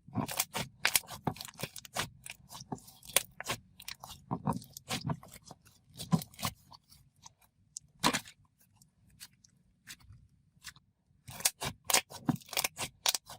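Slime being squished and poked by hand, giving an irregular run of sharp clicks and bubble pops, with a sparser stretch about ten seconds in.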